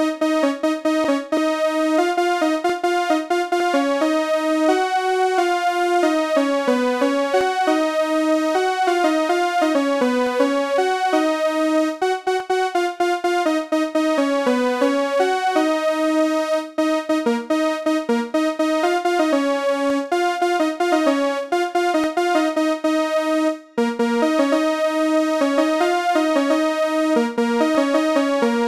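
Background music: a keyboard melody that plays on steadily and breaks off briefly about 24 seconds in.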